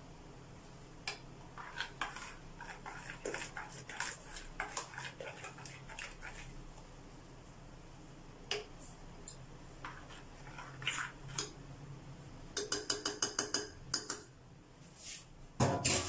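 Metal spoon stirring batter in a glass bowl, clinking and scraping against the glass. About three-quarters of the way through comes a quick run of about ten clinks, and a louder knock at the very end.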